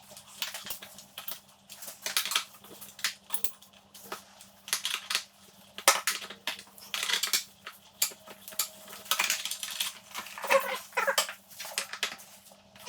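Metal tools and motorcycle parts clinking and clattering in irregular sharp knocks as the bike is stripped down by hand.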